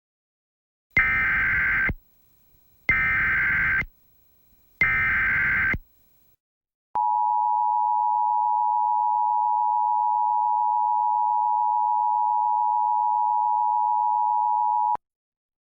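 Emergency Alert System SAME header: three one-second bursts of screeching digital data tones, about a second apart. They are followed by the EAS two-tone attention signal, a steady dual tone held for about eight seconds before cutting off abruptly, announcing a new alert.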